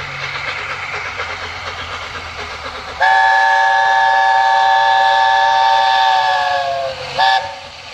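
Steam chime whistle of the LNER A4 locomotive Sir Nigel Gresley: one loud blast of about four seconds, starting about three seconds in, its chord sagging in pitch as it ends. A short second toot follows. Before the whistle, the steady rumble and hiss of the approaching locomotive.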